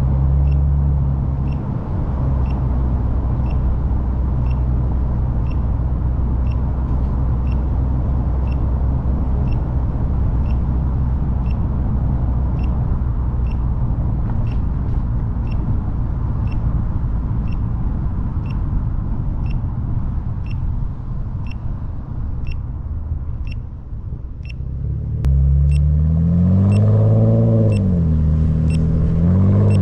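Car running on the road, engine and road rumble heard inside, with a short high beep repeating steadily a little more than once a second. About 25 seconds in, the engine picks up and rises and falls in pitch as it accelerates through the gears.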